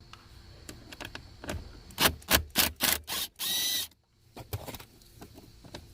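Sharp plastic clicks and knocks of dashboard trim, the footwell AC vent, being worked loose by hand, with a short high squeak of plastic on plastic about three and a half seconds in.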